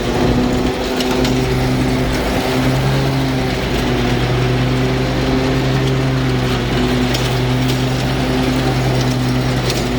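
Toro Z Master 5000 zero-turn mower's 24-horsepower Kohler Command Pro EFI engine running steadily at high throttle as the mower drives, its cutting blades engaged.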